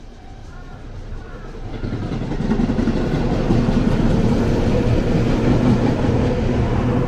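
A train passing close by. Its rumble builds from about two seconds in and stays loud and steady.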